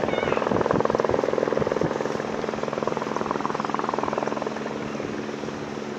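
Eurocopter AS350 AStar helicopter hovering low as it comes in to land: a rapid rotor beat over a steady engine hum. It is loudest in the first couple of seconds and eases slightly toward the end.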